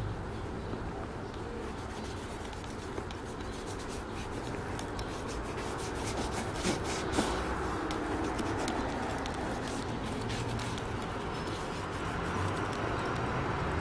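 A damp cotton ball being rubbed over a leather boot to clean it: steady scrubbing, with small handling clicks throughout.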